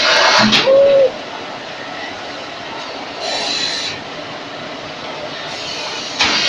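Pulp-molding egg tray machine running: a steady mechanical drone broken by loud hissing bursts of air about every three seconds, with a short squeal that rises and falls about a second in.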